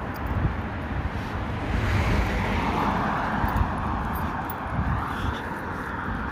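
Wind buffeting the microphone in a steady low rumble, with a broad rushing noise that swells about two seconds in and fades away near the end.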